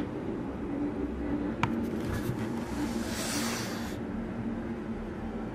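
A single plastic button click on the Bluetooth speaker about a second and a half in, over a steady low hum. A short hiss swells up and stops near the middle.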